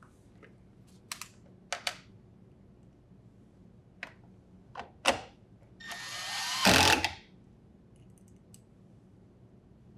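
Several light plastic clicks and knocks as the refrigerator's hinge cover is fitted, then about six seconds in a drill driver runs for about a second and a half, driving in a Phillips hinge-cover screw.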